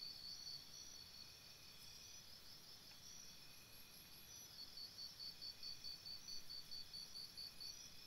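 Faint chorus of insects chirping, several callers at different pitches, the loudest repeating in even pulses about three to four times a second.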